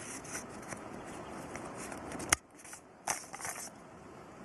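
Camping cookware being handled and unpacked: light rustling and scraping, with one sharp click a little over two seconds in, over a steady hiss that drops away after the click.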